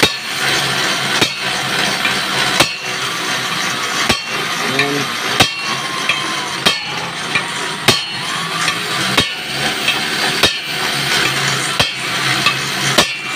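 Hammer striking a steel punch to drive a universal joint cross bearing cup into a propeller shaft yoke, in light, evenly paced blows about one every 1.3 seconds, around ten in all.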